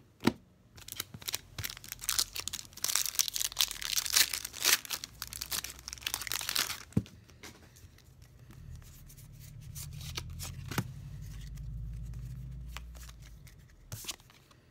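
Pokémon trading card booster pack's foil wrapper crinkling and tearing open, a dense crackle lasting several seconds. It gives way to a low rumble of handling noise that swells and fades, with a few clicks near the end.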